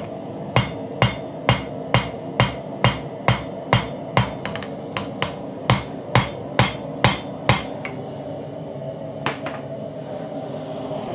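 Hand hammer striking red-hot Damascus steel on an anvil, about two blows a second for some seven seconds, each with a short metallic ring, then one lighter blow a little later. The blows spread the hot blade of an integral knife to widen it.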